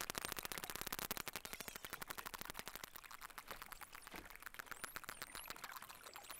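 Atlantic spotted dolphins heard underwater: rapid trains of echolocation clicks, with a high whistle gliding up and down near the end.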